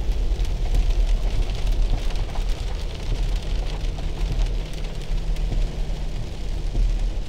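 Car cabin on the move: a steady low rumble of engine and tyres, with rain starting to strike the windscreen and roof as many light ticks.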